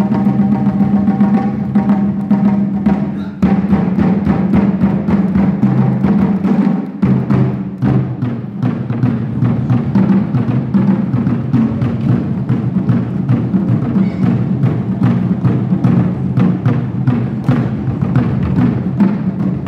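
Drum ensemble playing rope-tensioned barrel drums in a fast, dense rhythm, with short breaks about three and a half and seven seconds in.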